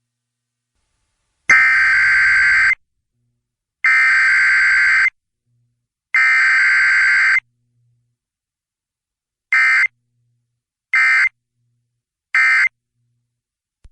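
Emergency Alert System digital data bursts: the rasping two-tone SAME code sent six times. First come three long bursts of about a second each, which fit a header; then three short bursts, which fit the end-of-message code.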